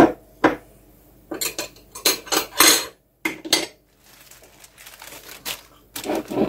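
Kitchen clatter of dishes and utensils on a countertop: a saucer and cutlery picked up and set down in a run of sharp, irregular clinks and knocks, the loudest right at the start.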